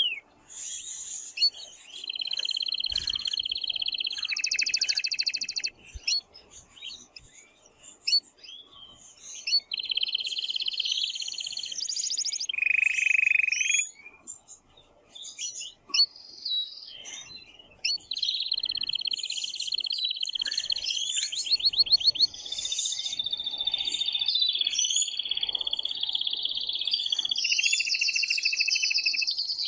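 Male canary singing very strongly: long phrases of rapid trills and rolls, with short chirped notes in the breaks between them.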